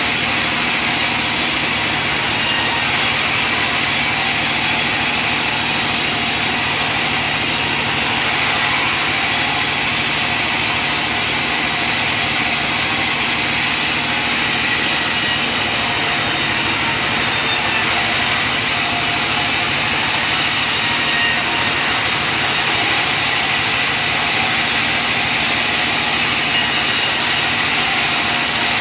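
Steady drone of sawmill machinery running, holding at one level throughout.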